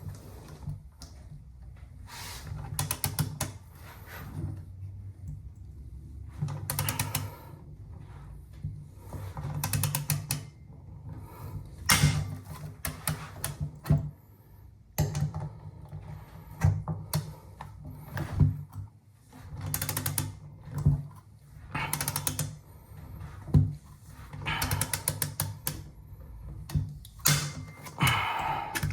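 A ratcheting hand driver clicking in short quick runs, again and again, as the scope-mount screws are tightened.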